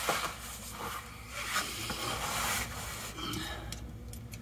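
Scraping and rustling of a person and clothing shifting on a concrete floor, lying down under a vehicle, with a few light clicks near the end.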